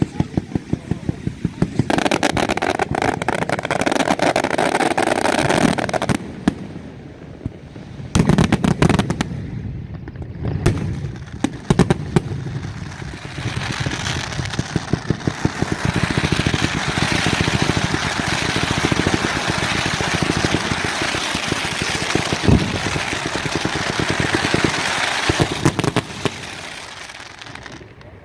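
Valencian nocturna fireworks: rapid strings of firecracker bangs and crackling with short lulls about six and ten seconds in. From about thirteen seconds on the crackling is dense and unbroken, then thins just before the end.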